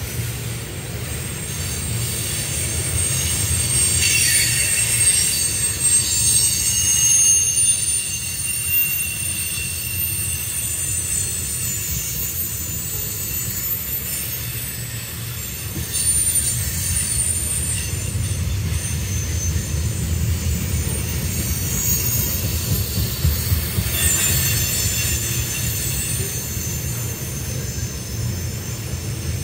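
Loaded tank-car freight train rolling past with a steady low rumble. High, thin wheel-flange squeal comes in about four seconds in, fades, and returns strongly near the end.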